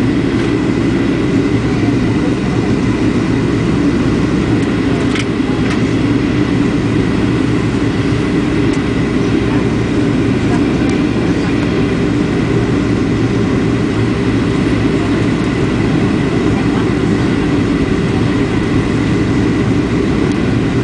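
Passenger airplane on approach: a loud, steady, low rush of engine and airflow noise with a faint steady high tone running through it. There is a brief faint tick about five seconds in.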